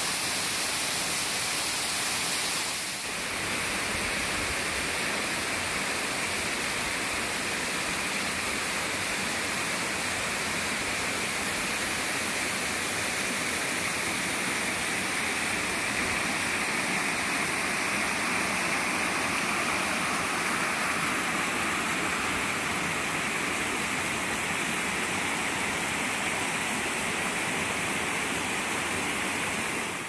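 Steady rush of flowing water from a woodland creek and waterfall, changing slightly in tone about three seconds in.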